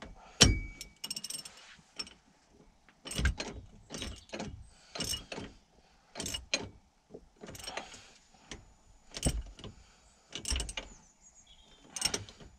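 Hand ratchet worked in short strokes on a rear shock absorber's top fixing, its pawl clicking in about nine brief bursts with a knock at the start.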